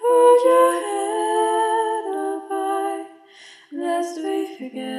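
A voice singing long held, hum-like notes with little accompaniment, stepping down to lower notes near the end.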